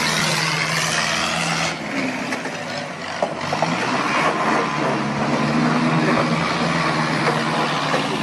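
Forklift engine running under load as the truck ploughs through deep standing water, its steady engine tone under the noise of water splashing and spraying. The splashing is heaviest in the first couple of seconds.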